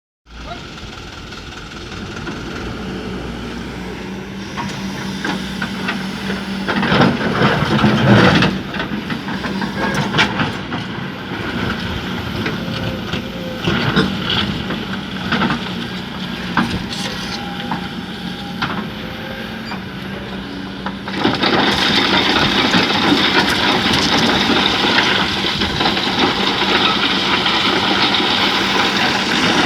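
Hydraulic excavator's diesel engine running with a steady hum, surging louder for a moment around seven to eight seconds in, with scattered knocks and clanks. About twenty-one seconds in, a louder, steady rushing noise sets in suddenly and continues.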